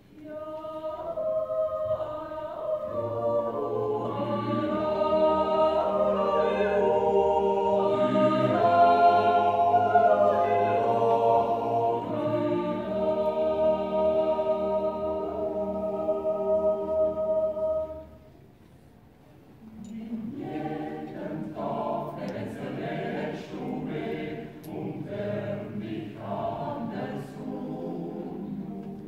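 Swiss yodel choir of men and women singing a yodel song a cappella in several parts. A long held chord breaks off about eighteen seconds in, and after a pause of about two seconds the singing starts again.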